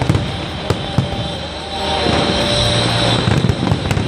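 Aerial fireworks shells bursting in quick succession: sharp bangs right at the start and about a second in, and a cluster near the end, over a continuous low rumble from the massed shells.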